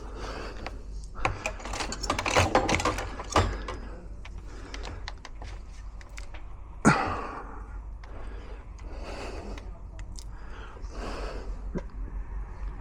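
Small metal lock parts clicking and rattling as they are handled and fitted, with a cluster of quick clicks in the first few seconds and one sharp knock about seven seconds in.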